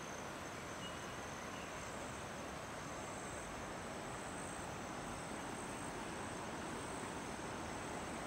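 Insects calling steadily in thin, high continuous tones over a constant outdoor hiss.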